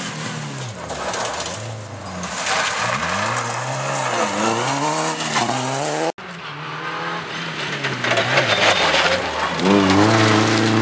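Rally car engines at full throttle: a hatchback passing with its revs rising and dropping several times through gear changes and lift-offs, then after an abrupt cut about six seconds in, a second rally car approaching with its revs climbing hard and loudest near the end.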